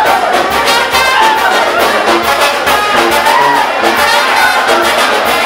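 A live brass band, a sousaphone among its horns, playing dance music with a steady beat.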